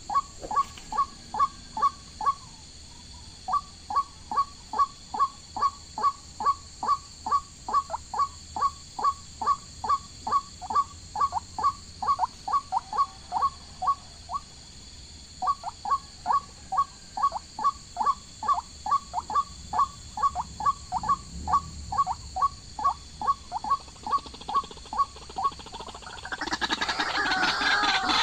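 A bird calling in long runs of short, pitched notes, about three a second, with one brief pause midway. Near the end a louder, fuller sound takes over.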